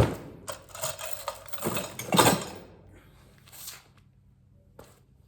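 Things being handled and moved about: an irregular run of clattering and rustling, loudest about two seconds in, then quieter near the end.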